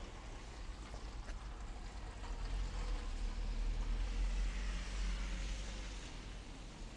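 A motor vehicle passing by on the street: a low rumble and tyre hiss that swell over about two seconds, peak midway and fade away.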